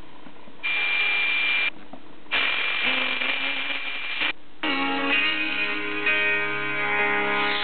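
Sony XDR-F1HD FM tuner audio stepping up the band 0.1 MHz at a time, with short drop-outs as it retunes. First comes hiss of static with a steady high whistle on weak or empty channels. From about halfway in, music from a distant station (YLE X3M on 98.6 MHz) comes through on tropospheric propagation.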